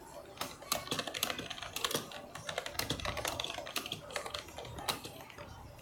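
Rapid, irregular light clicking and tapping, like typing, coming in clusters of several clicks a second.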